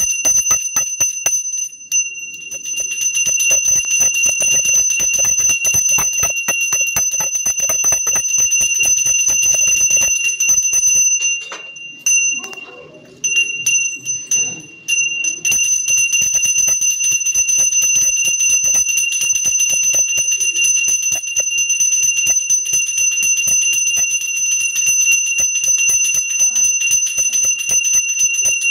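A puja hand bell (ghanti) rung continuously with rapid strokes during the worship, as a steady high ringing. It breaks off for about a second and a half around twelve seconds in, then resumes.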